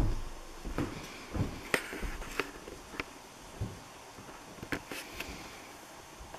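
Footsteps and knocks from handling a hand-held camera, a string of irregular thumps and clicks. The loudest thump comes right at the start, and after about five seconds only faint taps remain.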